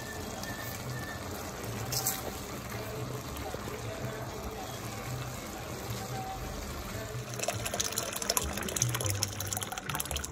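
Soft background music over the wet sounds of a pot of browned ground beef and vegetables in broth, stirred with a wooden spoon. From about halfway through, a louder crackling, liquid hiss sets in as crushed tomatoes go into the hot pot.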